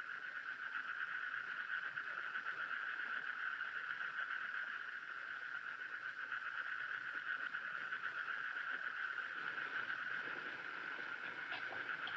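A steady chorus of night creatures, an even, fast-pulsing trill that carries on without a break.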